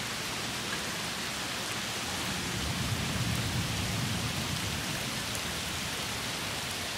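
Heavy rain falling steadily, with a low rumble swelling for a couple of seconds about halfway through.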